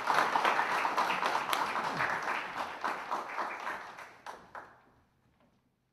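Audience applauding, dying away with a few last claps about five seconds in.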